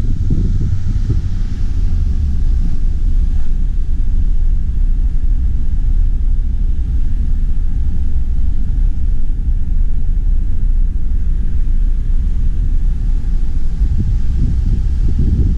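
A steady low rumble, loud and unbroken throughout.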